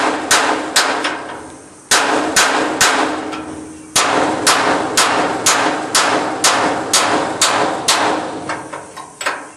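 Hammer striking a steel punch against a steel trailer ramp tab, a run of sharp metallic blows about two to three a second, each with a short ring, broken by two short pauses. The hammering is knocking the remains of a broken ramp tab off the trailer.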